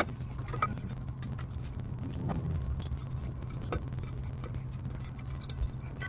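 Scattered light clicks and taps of metal parts being handled on the Previa's accessory drive shaft, over a steady low hum.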